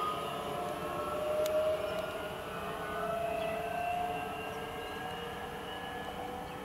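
Talent 2 electric multiple unit pulling away, its electric traction drive giving a whine of several tones that slowly rise in pitch as it gathers speed.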